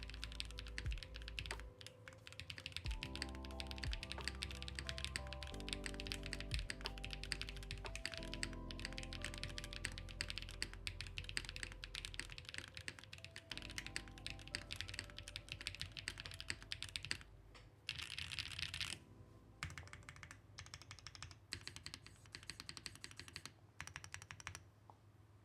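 Fast, continuous typing on a Haven65 mechanical keyboard with Gateron Weightlessness switches, key presses clicking in a dense stream, with a denser run about three-quarters of the way through and sparser keystrokes near the end. Soft background music with held chords plays underneath.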